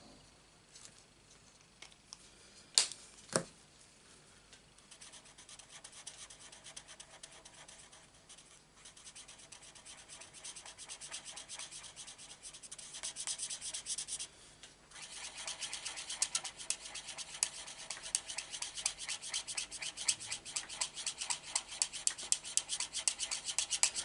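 Marker nib rubbing quickly back and forth on cardstock while colouring in, in rapid short strokes that grow louder from about halfway through. Two sharp clicks come about three seconds in.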